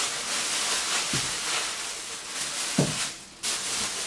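Thin plastic produce bags rustling and crinkling as vegetables are pulled out of them, with two soft thuds as things are set down, the louder one about three seconds in.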